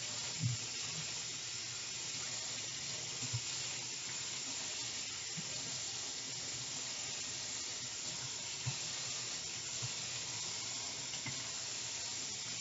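Sink tap running steadily, water pouring over a hair bundle held under it to rinse out the shampoo. A few soft low knocks, one near the start, one a few seconds in and one later.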